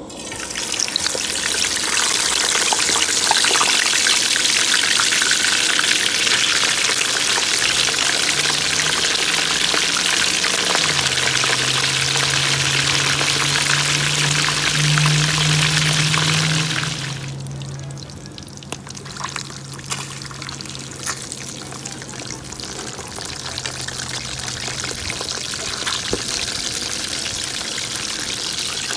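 Fish sizzling in hot oil at about 350°F in a frying pan: a loud, steady sizzle for the first two-thirds. It then drops suddenly to a quieter bubbling with scattered pops and crackles, and slowly builds again.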